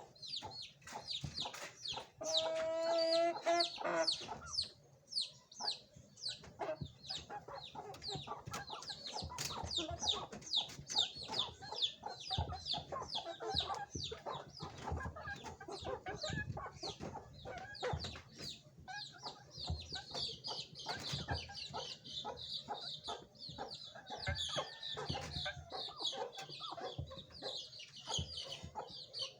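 Chickens clucking amid a constant stream of short, high chirps. About two seconds in comes one long pitched call lasting around two seconds.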